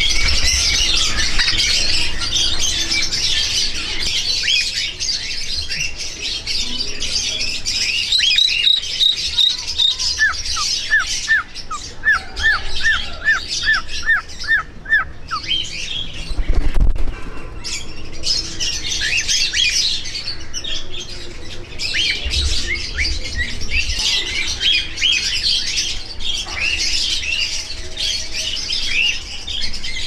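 Many aviary birds chirping and squawking without a break. About a third of the way through comes a run of about ten short, falling whistled notes at an even pace.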